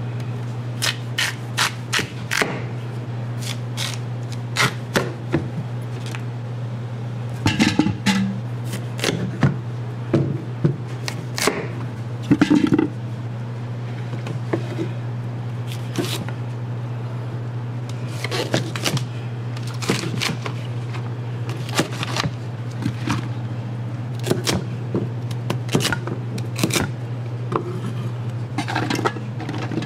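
Chef's knife cutting Korean radish, green onions and celery on a plastic cutting board: irregular runs of sharp knife strikes against the board. A steady low hum runs underneath.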